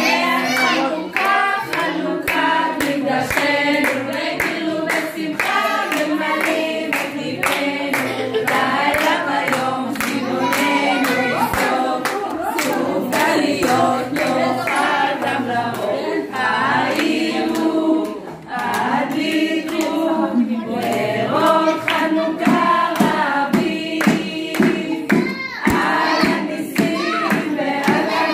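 A group of adults and children singing a Hanukkah song together around the lit menorah, with hand-clapping in time to the song.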